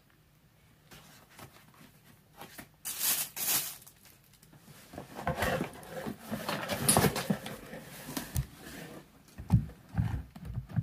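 Handling noise from unpacking: plastic wrapping rustling and microphone-kit parts clicking and clattering in a cardboard box, with a few dull thumps near the end.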